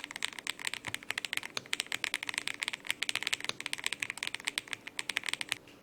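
Fast typing on a Dareu GT87 keyboard with magnetic (Hall effect/TMR) switches: a quick, dense run of keystroke clicks that stops shortly before the end.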